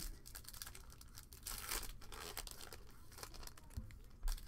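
Foil wrapper of a 2021 Bowman baseball card pack being handled and torn open: a run of many soft crackles and crinkles.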